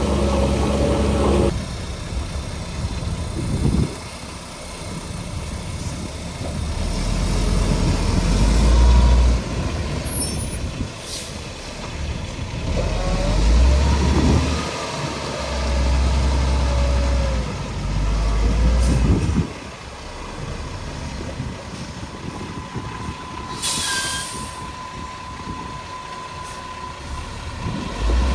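Heavy diesel earthmoving machinery working: the engines of a bulldozer and a dump truck rise and fall in repeated surges under load. There is a short air hiss, like an air brake releasing, about three-quarters of the way through.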